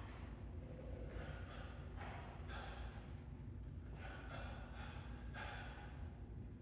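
A man's sharp, breathy exhalations, repeated roughly once a second as he throws shadow-boxing punches, over a steady low hum.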